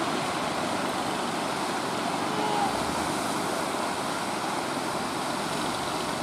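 Steady rushing noise of breaking surf and wind, mixed with the engine of an outrigger fishing boat running hard through the breakers.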